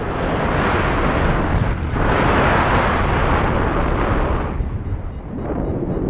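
Wind rushing over the camera microphone of a paraglider in flight, a loud steady rush that swells and eases, easing briefly about two seconds in and again near the end.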